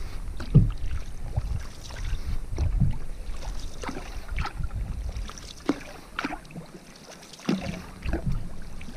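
Canoe paddle strokes in calm lake water: irregular small splashes and drips alongside the hull, with a quieter lull about two-thirds of the way through.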